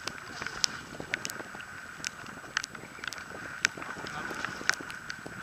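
Wind and sea noise on a boat-mounted camera, with irregular sharp clicks and knocks about every half second to a second, typical of chop slapping against an inflatable boat's tube.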